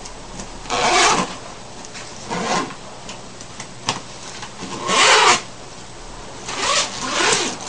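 Suitcase zipper being slid along its track in several short rasping strokes: the locked sliders are run around the case to re-mesh the coil that a pen had split open.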